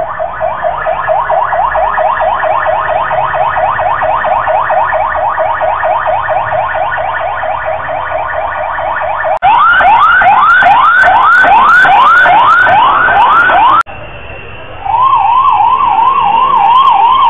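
Loud electronic emergency-vehicle siren cycling through its tones. It starts with rapid rising yelps several times a second. About nine seconds in it switches abruptly to a louder, slower rising wail of about two or three sweeps a second. After a brief dip it changes to a fast up-and-down warble.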